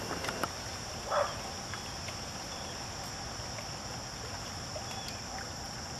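Steady high-pitched insect chorus, with a few faint clicks near the start and a short, louder sound about a second in.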